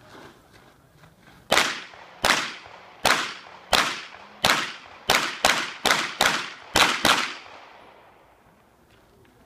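A pistol fired about eleven times in quick succession during a practical shooting stage. The first shots come evenly, under a second apart, and the later ones come faster, in close pairs; each crack has a short echo.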